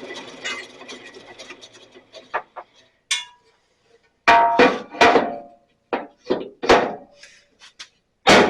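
Sears Craftsman 12-inch bandsaw coasting down after being switched off, its steady hum fading out within the first second or two. Then a run of sharp, separate knocks and clunks from objects being handled, the loudest about halfway through and again near the end.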